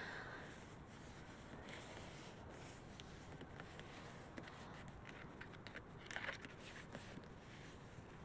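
Hands rubbing and pressing a piece of cardboard packaging down onto an inked gel printing plate, burnishing it to lift the paint off as a print: faint soft rubbing with small scratchy ticks, a little louder about six seconds in.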